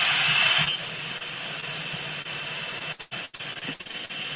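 Hand blender with a whisk attachment running in a bowl, whisking peanut butter and coconut milk into a frothy icing. The whirr is loud for under a second, then drops to a steadier, quieter level, briefly cutting out twice about three seconds in.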